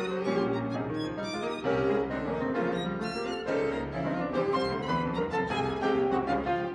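Instrumental music led by a violin, with changing notes and wavering held tones over a lower accompaniment.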